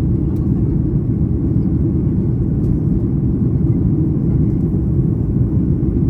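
Steady low rumble of engine and airflow noise inside the passenger cabin of a Boeing 737 MAX 8 with CFM LEAP-1B engines, during descent.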